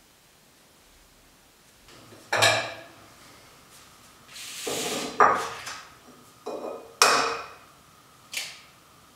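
Kitchen clatter: a ceramic bowl and frying pans set down on the counter and hob in a few sharp knocks, with a short scraping rustle halfway, then eggs tapped and cracked against the bowl near the end.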